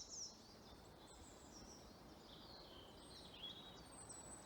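Faint woodland birdsong: several high chirping and trilling phrases, some falling in pitch, with a thin high whistle near the end, over soft background hiss.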